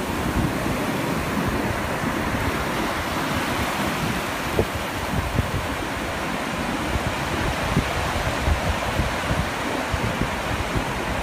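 Surf washing up on a sandy beach, steady and even, with wind buffeting the microphone in low rumbling gusts.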